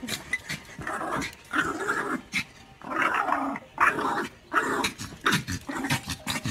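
A small fluffy puppy growling at a clothes iron pushed towards it, in a series of short rough bursts.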